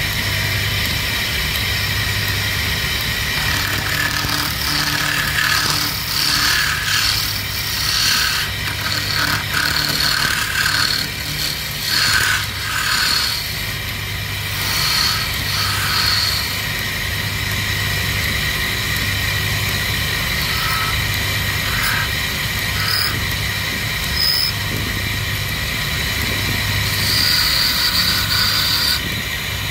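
Wood lathe running with a steady low hum, while hand-held chisels cut and scrape a spinning wooden spindle. The cutting comes in short scraping passes, thickest in the first half and again near the end.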